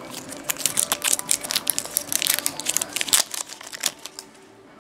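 Printed plastic wrapper being peeled and crinkled off a plastic capsule egg: a dense run of sharp crackles that stops about four seconds in.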